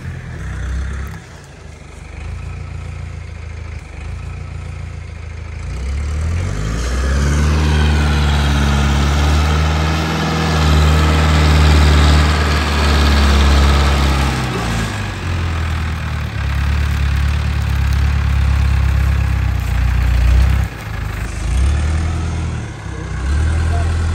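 Heavy diesel engine idling, then revved up about six seconds in and held at higher revs for several seconds before easing back, with brief dips in engine speed near the end.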